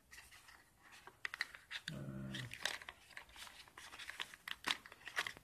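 Rustling and sharp clicks of a coiled USB cable being pulled out of a phone box's cardboard accessory tray, with a short low hum about two seconds in.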